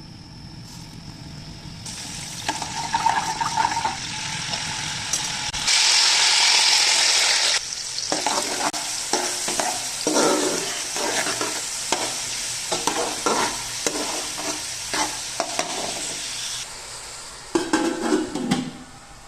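Food frying in a pan, with a loud burst of sizzling about six seconds in, followed by a spoon stirring and scraping through it in short, irregular strokes.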